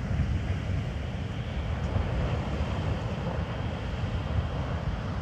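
Wind buffeting the microphone in a steady, choppy low rumble over the wash of surf breaking on the shore.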